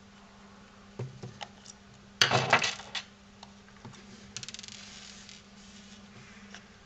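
Handling of a Phillips screwdriver, screws and a plastic headphone earcup on a wooden workbench: a few light clicks, then a short loud metallic clatter about two seconds in, then a quick run of small plastic clicks as the earcup is worked open.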